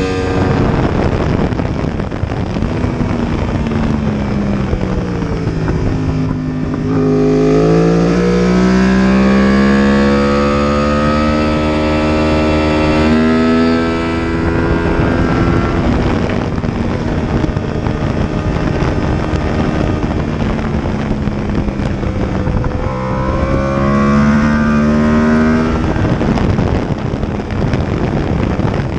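Yamaha R1 sportbike's inline-four engine at speed on a race track, heard from on the bike with wind rush: its pitch drops as the bike slows into corners and climbs again as it accelerates, several times over.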